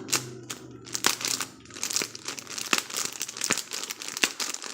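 Plastic crinkling and crackling with many sharp little clicks as a squishy toy in its plastic packaging is handled and squeezed.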